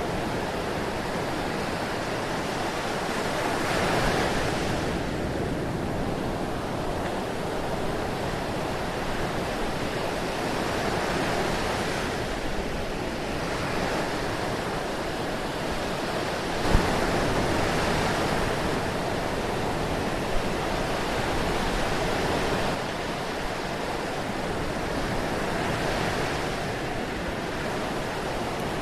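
Ocean surf: a continuous rushing wash of waves that swells and eases every several seconds as waves break and draw back. There are two brief sharp sounds, one about seventeen seconds in and a smaller one a few seconds later.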